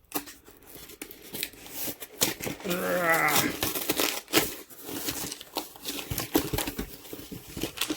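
A mail package being torn open by hand: tearing and crinkling of the packaging with many small sharp rustles and clicks. About three seconds in comes a brief wavering vocal sound from the person opening it.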